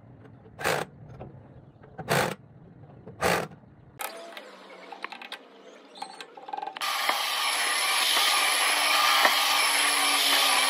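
An electric impact wrench fires three short bursts on the chopper's bolts, then a spanner clicks against the blade bolts. From about seven seconds a loud steady noise takes over.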